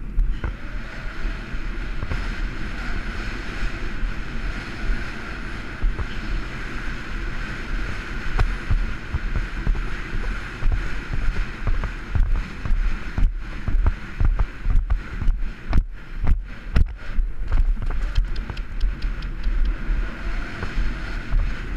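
Wind buffeting the microphone: a steady rushing rumble, with irregular thumps and knocks from about halfway through.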